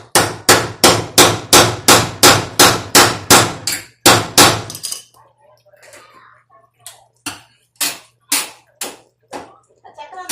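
Rapid hammer blows, about three a second for roughly four seconds, then after a short pause a run of lighter, slower blows.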